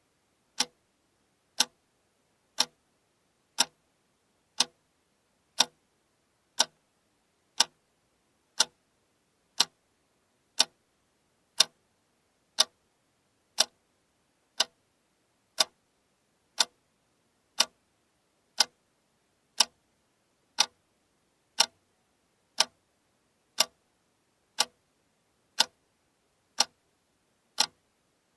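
Alarm clock ticking steadily, one sharp tick each second with silence between.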